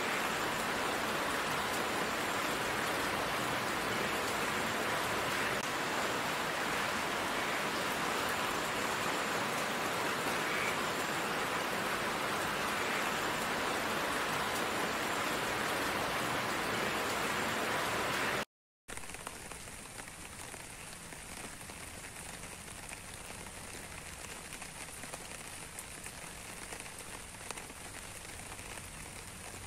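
Steady rain falling. It cuts out for a moment about two-thirds of the way through, then comes back quieter and thinner.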